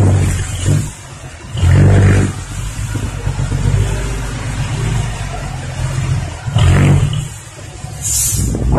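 Diesel engine of a loaded six-wheel dump truck revving in surges as it reverses, with a short hiss near the end.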